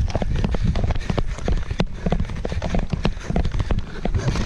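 Running footsteps on sandy dirt: a quick, irregular patter of steps over a steady low rumble of camera-mount jostle.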